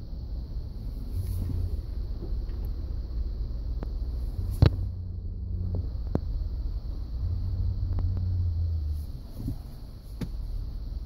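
Ford F-150 grinding noise from turning the steering wheel: a low drone that swells and fades in three stretches over a steady rumble, with a sharp click a little before halfway. The owner says the grind has been there since new and is worse when the truck is cold.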